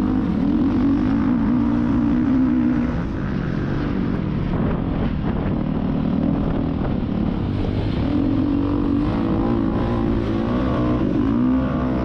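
Off-road vehicle engine running under throttle while riding over sand dunes, heard through a helmet-mounted camera with wind rushing over it. The engine note fades about three seconds in, comes back strongly near eight seconds, and wavers up and down near the end as the throttle changes.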